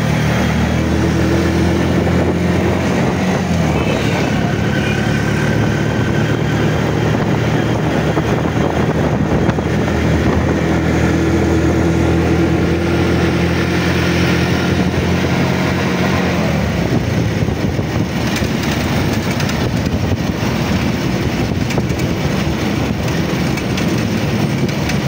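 Motorcycle engine running steadily, heard from on the moving bike over constant traffic and road noise. Its low hum holds level for most of the time and shifts about two thirds of the way through.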